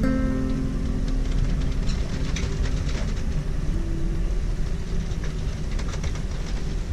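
Steady low rumble of a small expedition ship, the Spirit of Enderby, heard from inside its bridge while it pitches through heavy seas, with scattered faint clicks and knocks over it.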